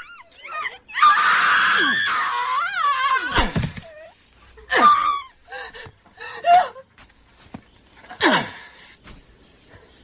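A person screaming: one long scream, then several shorter cries and gasps that get quieter toward the end.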